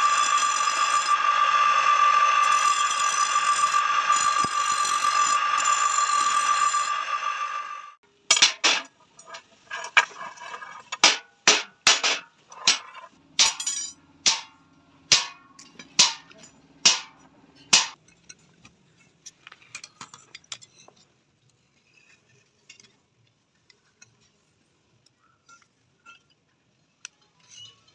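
Bench grinder's abrasive wheel grinding a steel rod, a loud steady whine that stops abruptly about eight seconds in. Then about a dozen sharp hammer blows on steel at the anvil, roughly one a second, followed by a few faint clinks.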